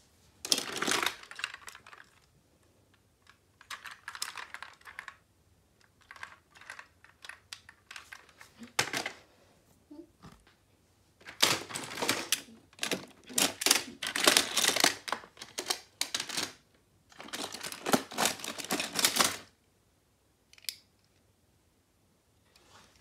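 Small diecast toy cars clinking and clattering against one another and a plastic storage bin as they are rummaged through, in several bursts of rapid clicks, the longest and densest in the second half.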